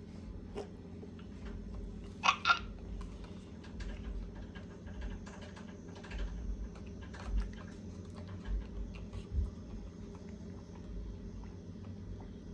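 Scattered light clicks and taps, with two sharp, louder clicks close together about two seconds in, over a steady low hum.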